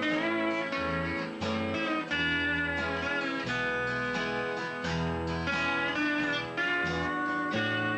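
Lap steel guitar playing a slow Hawaiian-style melody with gliding notes, over a strummed acoustic rhythm guitar and an electric bass guitar.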